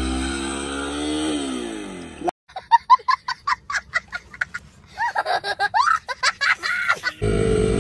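Hero XPulse 200 single-cylinder engine revving up and easing off, cut off abruptly about two seconds in. Then a run of short, high-pitched laughter and giggling, with music starting near the end.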